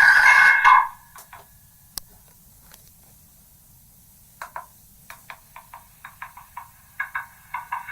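Megaphone playing back a recording that has been re-recorded from megaphone to megaphone many times, the spoken phrase worn down into distorted noise. The loud, harsh playback cuts off under a second in. After a sharp click, short crackly fragments return about halfway through and come faster and faster until they run together near the end.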